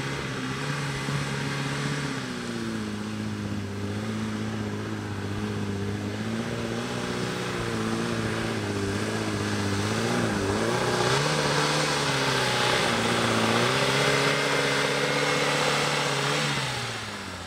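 An off-road 4x4's engine running hard at high revs, its pitch stepping and wavering with the throttle. It grows louder before dying away near the end.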